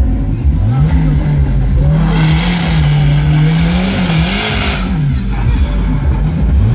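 Suzuki Jimny Turbo's engine revving hard under load through mud: the pitch rises about half a second in, holds high, drops away around five seconds, then rises again near the end. A loud rushing noise joins it from about two seconds to nearly five seconds in.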